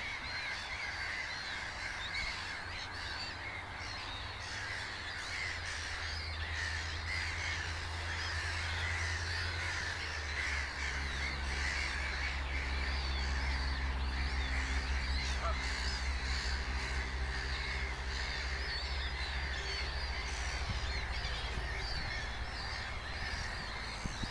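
Mixed colony of Mediterranean and black-headed gulls calling constantly, many overlapping short calls with no pause.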